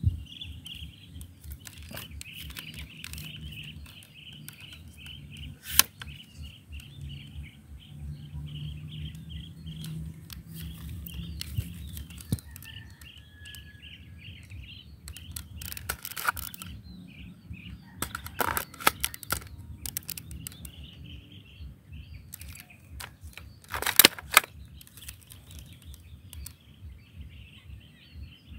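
Spring-powered airsoft AR-15 rifle being handled and shot: a few sharp clicks and snaps, the loudest a close pair about four seconds before the end. Under them runs a steady pulsing chirping and a low wind rumble.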